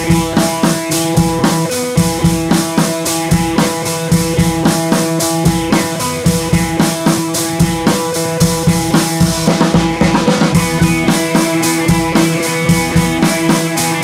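Background music with a steady drum-kit beat under held instrument tones.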